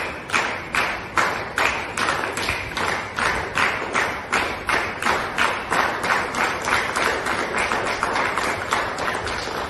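A group of women clapping their hands in unison in a steady rhythm, about two and a half claps a second, each clap ringing briefly in a large hall.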